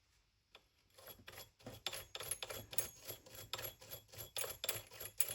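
Quick, irregular metallic clicking and scraping, roughly four or five strokes a second, as the chainsaw's clutch is worked off its left-hand-threaded crankshaft by hand. It starts about half a second in.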